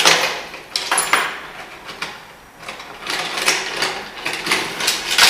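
Cloth, cord and plastic crate handled at close range: irregular bursts of rustling and scraping, busiest at the start and from about three seconds in.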